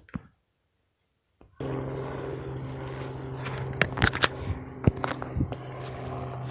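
After about a second and a half of dead silence, a steady low hum sets in, with scattered sharp clicks and scrapes over it.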